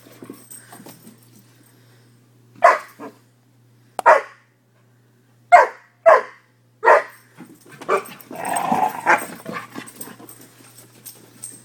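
Newfoundland–Labrador mix puppies barking in play: about six short, sharp single barks with pauses between them, then a longer, rougher stretch of barking near the two-thirds mark.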